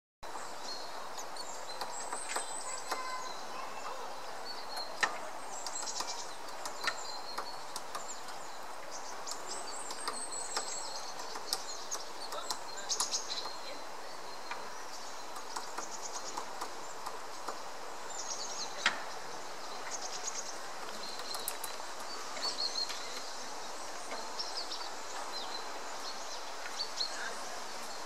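White-backed woodpecker pecking at a tree trunk: scattered single sharp knocks at irregular intervals. Small birds chirp and sing throughout over a steady outdoor background.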